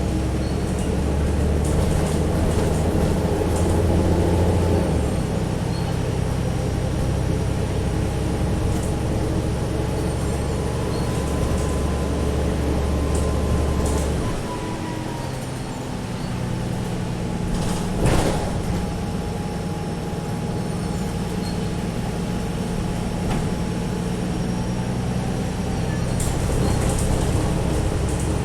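Alexander Dennis Trident double-decker bus's diesel engine running under way, with a thin, steady turbocharger whistle over it. About halfway the engine's low note drops, and a single sharp knock comes about two-thirds through.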